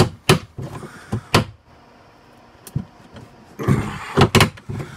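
Clicks and knocks of a 10 mm ratcheting wrench working a tight door-handle bolt up inside a car door, in two bursts with a quiet pause between them.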